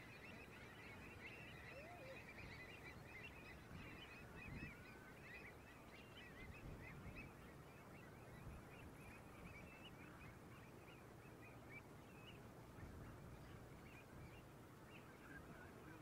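Faint, dense chatter of a large flock of waterbirds calling: many short overlapping calls over a low, steady rumble.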